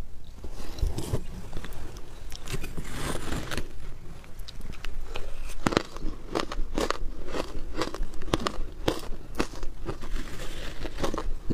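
Close-miked eating of shaved ice: a metal spoon scoops from the tub, then many crisp, irregular crunches of the ice being bitten and chewed, starting about five seconds in.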